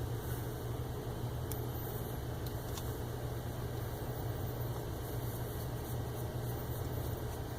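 Steady low mechanical hum, like running machine fans, with a few faint light ticks.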